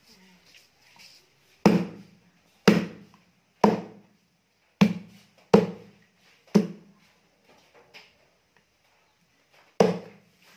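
Cleaver chopping catfish on a thick wooden chopping block: seven heavy chops, most about a second apart, with a longer pause before the last one near the end.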